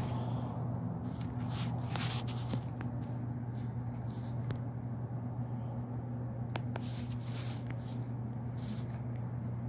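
Rustling and scattered light clicks of a camera or phone being handled and repositioned, over a steady low electrical hum.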